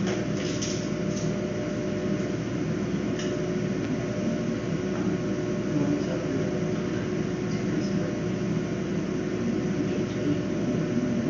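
Steady mechanical hum with several held tones, like machinery or ventilation running. There is a faint click about half a second in and another about three seconds in.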